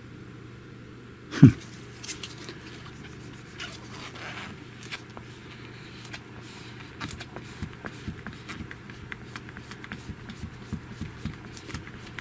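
Small scattered clicks and scrapes of fingers working a screen protector onto a phone screen, pushing out trapped bubbles, with one loud low thud about a second and a half in. A faint steady hum sits underneath.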